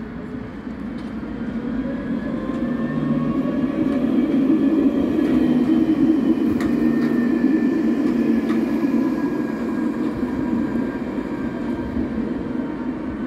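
A tram passing close: its wheels rumble on the rails with an electric whine over the top that bends in pitch. It grows louder as it approaches, is loudest about halfway through, and then slowly fades.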